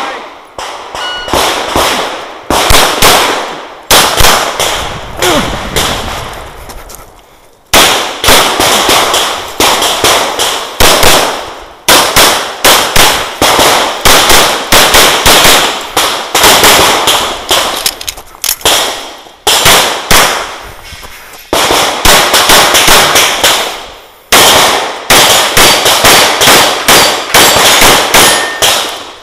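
Semi-automatic pistol firing through a USPSA stage: rapid strings of shots, at times about four a second, broken by short pauses while the shooter moves between positions.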